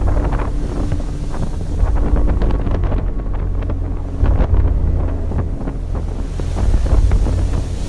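Strong wind buffeting the microphone on a ship's deck in a storm, with waves breaking and spray hissing against the hull over a deep, uneven rumble.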